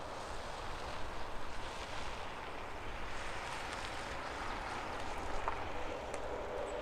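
Jet airliner on arrival passing by, a steady rushing engine and airflow noise that swells and eases slowly, with wind buffeting the microphone.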